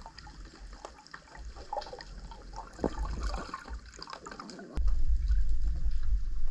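Water sounds picked up by a camera underwater: faint crackling, ticking and bubbling over a low wash. About four and a half seconds in this jumps suddenly to a much louder, steady low rumble of water churning at the surface.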